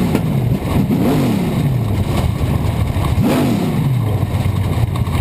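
Super stock dirt-track race car's engine heard from inside the cockpit, off the throttle with its pitch falling, blipped up and back down twice, about a second in and again just past three seconds, then settling to a low, uneven running.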